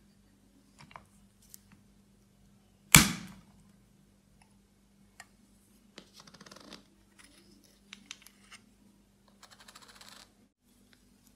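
A loud, sharp crack about three seconds in as a watch crystal is pressed out of its metal ring in a crystal press, followed by a few faint clicks and two brief spells of light scraping as the parts are handled and set down.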